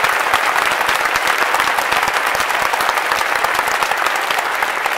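A large crowd of spectators applauding steadily, a dense patter of many hands clapping.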